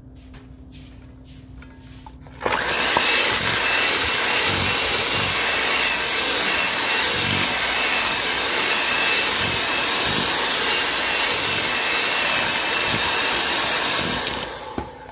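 Electric mixer running steadily in a bowl of cake batter, switched on sharply about two and a half seconds in and switched off near the end.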